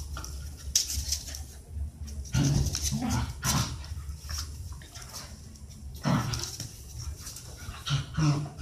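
Two dogs, a black dog and a beagle-type dog, play-fighting, with dog vocalizations in short bursts: a cluster about two to four seconds in, another around six seconds, and one near the end.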